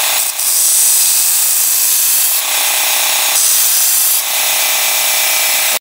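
Mini belt sander (a 12–24 V DC motor driving a 25 mm abrasive belt) running with a steady whine while a knife blade's edge is ground against the belt, giving a loud rasping hiss. The grinding swells in two passes, the first about two seconds long and the second about a second, and the sound cuts off suddenly near the end.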